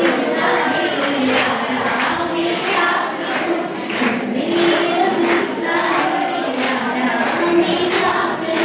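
A group of young voices singing a song together, with a steady percussive beat about three times a second.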